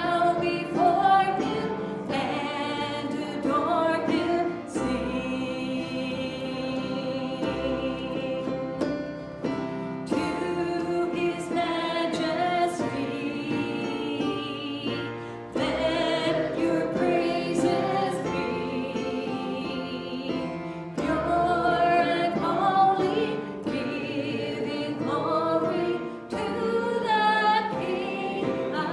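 Gospel-style singing by several voices with instrumental accompaniment, the voices holding long, wavering notes.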